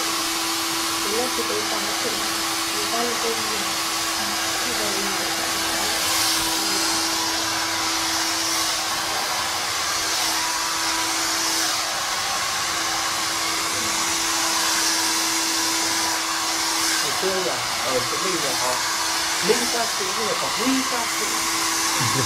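Handheld hair dryer blowing steadily during a salon blow-dry: a constant rush of air over a steady motor hum.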